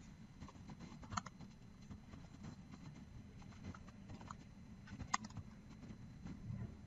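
Faint keystrokes of someone typing on a computer keyboard, with two louder sharp clicks, about a second in and about five seconds in.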